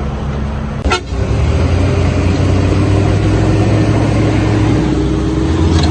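Heavy diesel engine of an earthmoving machine or dump truck running hard. A sharp knock comes about a second in, after which the engine runs louder and steadily.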